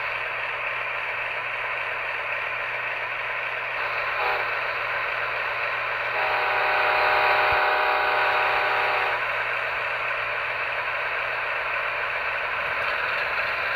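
Model train running along its track, carrying the camera: a steady whir and rattle of the motor and wheels. About six seconds in, one held horn blast lasts about three seconds.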